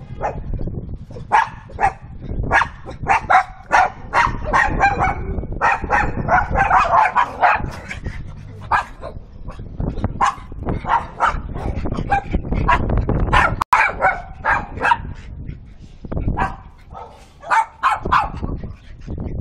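Small dogs barking in quick runs of short, sharp barks as they play together, with a dense flurry of barks near the middle.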